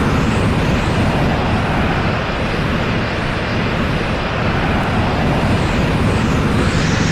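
Dragon Ball Z 'Potential Unleashed' power-up sound effect: the aura held at full strength as a loud, steady rush of noise with a deep rumble underneath, and faint swishes sweeping through the treble about once a second.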